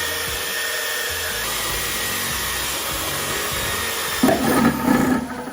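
Power drill boring a hole through the bottom of a thick pot: a steady grinding whir that turns rougher and louder about four seconds in, then stops near the end.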